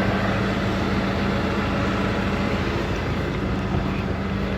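Farm tractor engine running steadily, an even mechanical hum with a constant low tone.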